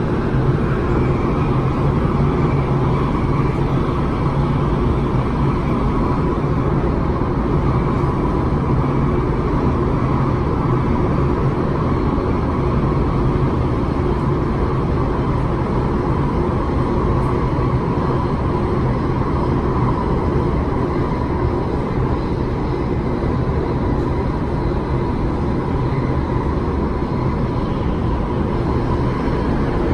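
Steady running noise heard from inside the passenger car of a moving MTR West Rail Line train: a constant rumble of wheels on rail with a steady hum.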